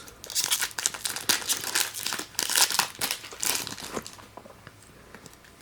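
Pokémon trading card booster pack's foil wrapper being torn open and crinkled by hand, a dense crackling that stops about four seconds in.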